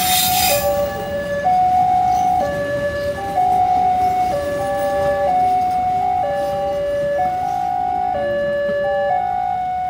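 Two-tone electronic warning siren alternating steadily between a higher and a lower note, each held about a second, over a low rumble.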